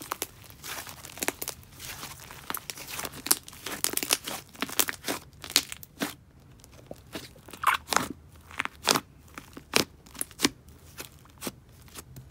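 Soft, thick, creamy clay slime being stretched, folded and pressed by hand, giving irregular small pops and crackles. A few louder pops come after the middle.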